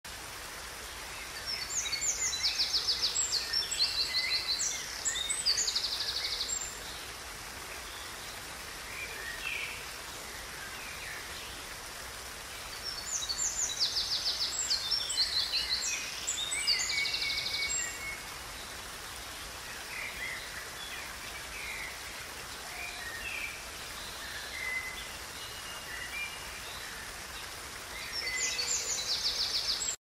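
Water flowing steadily over a small rock cascade in a stream. A songbird sings a long song of rapid trills three times, about twelve seconds apart, with a few softer chirps in between.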